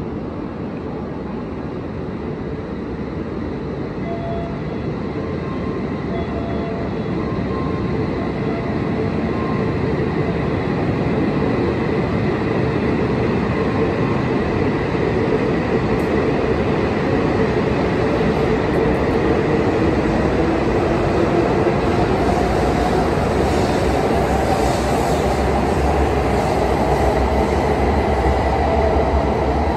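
A JR Hokkaido H5 series Shinkansen train pulls out of the station and gathers speed past the platform. Its running noise grows steadily louder, and in the second half a whine climbs in pitch as the train accelerates.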